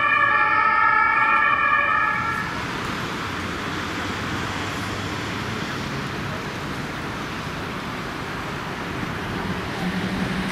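Ambulance siren sounding steady tones, cut off about two and a half seconds in, followed by steady street and traffic noise. Near the end a Mercedes-Benz Sprinter ambulance's engine rises as it pulls away.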